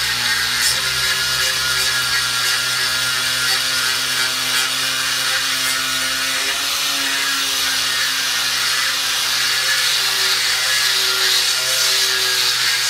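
Makita grinder running steadily, grinding down planer ridges on a burled maple slab, its motor pitch dipping slightly as it is pressed into the wood.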